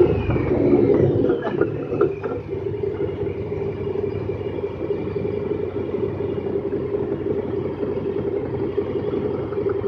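Honda Pioneer 1000-5 side-by-side's parallel-twin engine running at a steady cruise, heard from inside the cab; it eases off in the first second or so, with a few light knocks over bumps, then holds an even hum.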